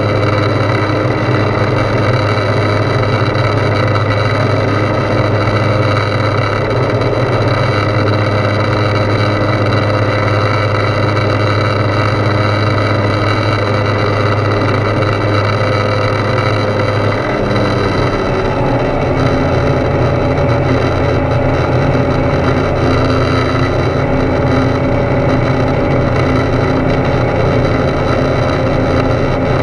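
Rotax 912 engine and propeller of a Foxbat A22LS light aircraft droning steadily in cruise, heard inside the cockpit. Its note drops a little about two-thirds of the way through.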